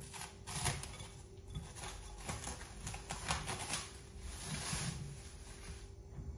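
Soft rustling and light irregular taps of hands handling biscuit dough in a glass bowl, with parchment paper shifting, over a faint steady hum.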